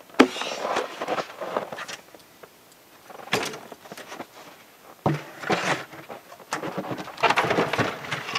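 Wooden boxes and gear being rummaged through and moved about: a few sharp knocks and clatters, about a quarter second in, at about three and a half seconds and at about five seconds, with rustling and shuffling between.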